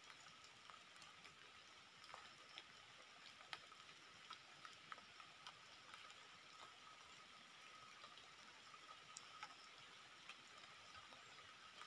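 Near silence: faint outdoor ambience with a thin, steady high hum and scattered soft ticks and clicks.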